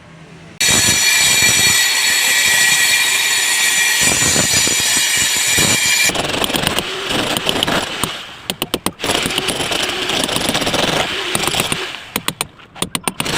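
Angle grinder cutting: a steady high whine that starts abruptly, then from about six seconds in goes on in short stop-start bursts with brief breaks.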